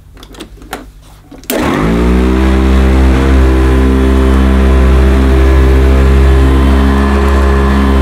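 An Electrolux Widetrack Professional upright vacuum cleaner is switched on about one and a half seconds in, after a few faint clicks. Its motor spins up within about half a second, then runs steadily and loudly as it is pushed over short-pile carpet. Its beater bar is driven by a new, very tightly fitted belt.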